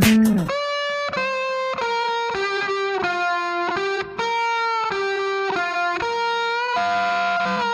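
Background music: a slow melody of single held notes, without drums.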